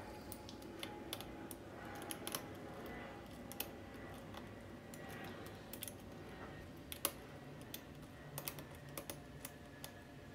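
Hook pick working the pin tumblers of a Schlage SC4-keyway lock held under tension: irregular light clicks and ticks of pins being lifted and set, with one louder click about seven seconds in.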